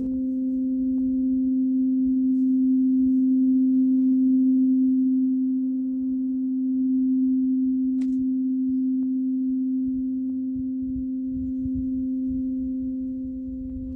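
Large steel tuning fork ringing with one steady, pure low hum and a fainter tone an octave above. The hum swells and ebbs a little as it sustains.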